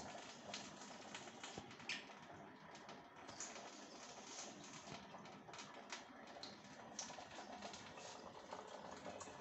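Near silence: faint room tone with scattered light clicks and ticks at irregular intervals.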